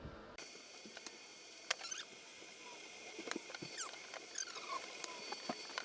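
Broken plastic parts being welded together with a hot tool: scattered faint crackles and clicks and short squeaky chirps that fall in pitch, over a steady high hiss that starts abruptly about half a second in.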